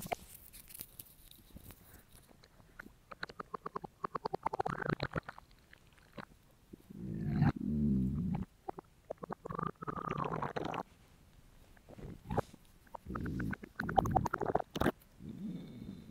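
A hungry, empty stomach growling and gurgling in several bouts: bubbly gurgles with rapid pops, then about halfway a loud, low, drawn-out growl, followed by a gurgle that rises and falls in pitch and more bubbling near the end.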